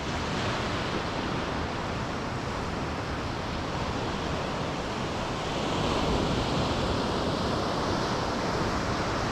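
Ocean surf washing steadily onto the beach, with a wave surging louder about six seconds in, and wind buffeting the microphone.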